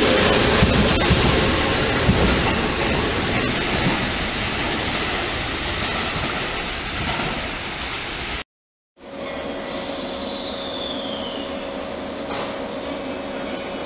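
Onboard sound of a JR Central 373 series electric train running, a loud rush of wheel and traction noise that slowly eases. About eight and a half seconds in it cuts to silence for a moment, then a JR Shikoku 8000 series train's Toshiba GTO-VVVF inverter is heard: a steady hum with a high whine that glides down in pitch.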